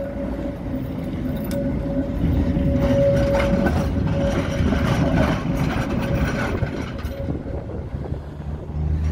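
Articulated Tatra tram passing close and moving off: a steady whine fades over the first few seconds, then the wheels rumble and clatter over the rails and track joints, the sound dying down after about seven seconds as it pulls away.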